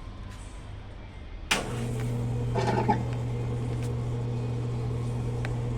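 Consul Facilite 11 kg top-loading washing machine starting a motor with a click about a second and a half in, then running with a steady low hum, as the cycle moves on towards its spin.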